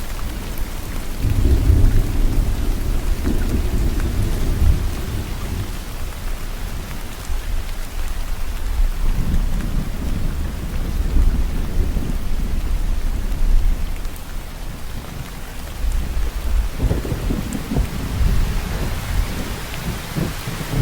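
Steady rain falling, with rolling thunder: deep rumbles swell about a second in, again around nine seconds, and once more near the end.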